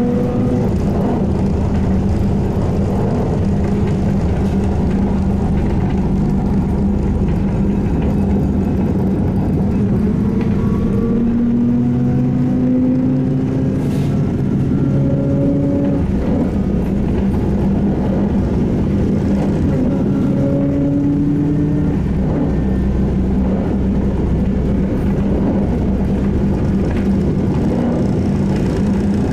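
SVARZ-MAZ-6235.00 trolleybus heard from aboard while driving: a steady rumble with a constant hum, and the electric traction drive's whine rising in pitch several times as it speeds up.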